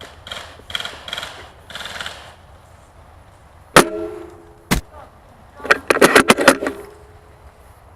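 Airsoft gunfire: two single sharp shots about a second apart, then a rapid burst of about a dozen shots, after some faint rustling.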